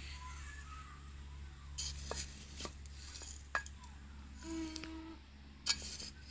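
Garden trowel scooping gravel and tipping it into a tub of compost: scattered crunches and scrapes of small stones. A short low hum sounds about four and a half seconds in.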